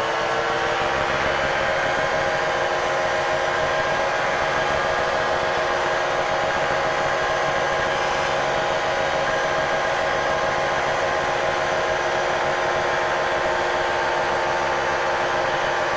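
Light airplane's piston engine and propeller droning steadily in the cockpit on final approach to land.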